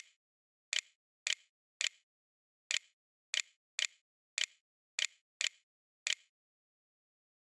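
Windows On-Screen Keyboard key clicks as letters are clicked one by one: about eleven sharp clicks at an uneven typing pace, each followed by a softer tick.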